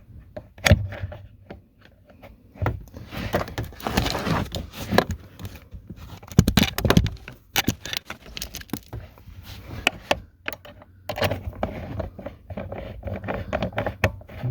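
Irregular clicks, rattles and scrapes of hand tools, a bolt and plastic parts being handled while the blower motor and its housing are fitted back into place.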